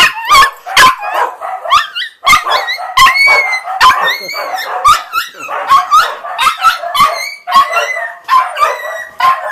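Several dogs barking and yipping excitedly, fast and overlapping, some calls sliding up and down in pitch: agitated barking set off by a person making a buzzing noise the dog hates.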